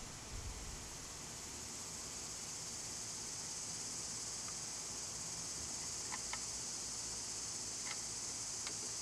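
Steady, high-pitched chirring of insects in the background, with a few faint light clicks in the second half.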